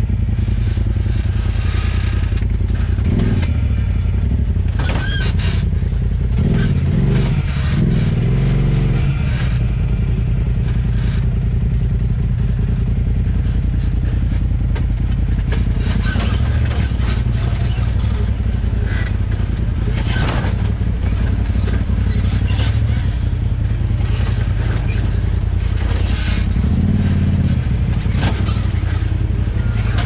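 Polaris RZR side-by-side driving down a rocky creek-bed washout, its engine running steadily under repeated knocks and clatter from the chassis. Repeated squeaks come from the suspension: the "Polaris squeak" of worn shock bushings at 7,000 miles, along with the rear sway bar shearing off the frame.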